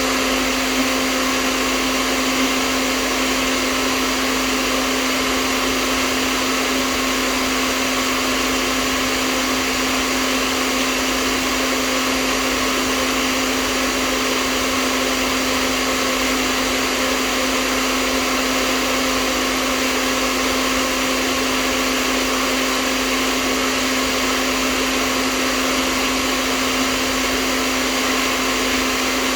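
Hair dryer running steadily: a continuous rush of air with a constant motor hum underneath.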